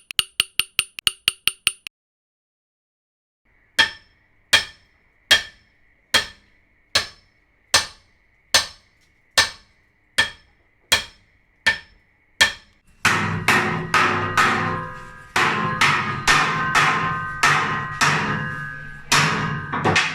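Hammer blows in three runs: quick light taps about four a second that stop just under two seconds in, then after a short pause steady single blows a little under one a second, then from about thirteen seconds in faster blows whose ringing carries on between strikes.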